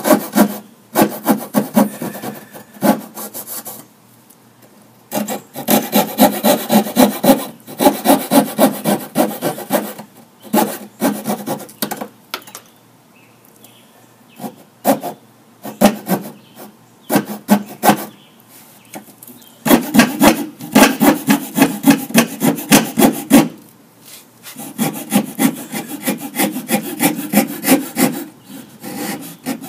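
Coping saw cutting by hand through wooden trim moulding, following the traced profile line to cope the joint: quick back-and-forth strokes in spells of a few seconds, broken by short pauses.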